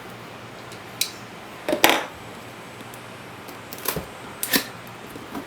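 A box being handled and opened: four scattered clicks and short rustling scrapes.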